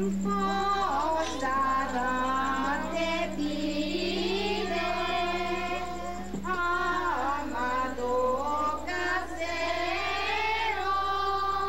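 A crowd of women and children singing a Christmas posada song together in a slow melody with long held notes.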